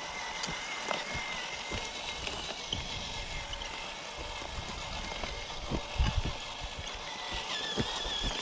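Radio-controlled scale truck's electric motor and gears whining steadily as it tows a boat trailer over rough grass, with grass rustling and a few low thumps, the loudest about six seconds in.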